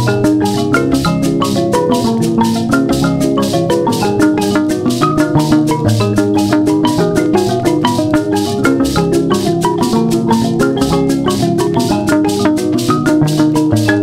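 Background music: quick pitched melodic notes over a steady beat of crisp high ticks, about four a second.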